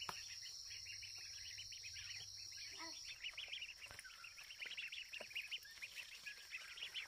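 A steady high-pitched insect drone with many quick bird chirps over it; the chirping gets busier about three seconds in.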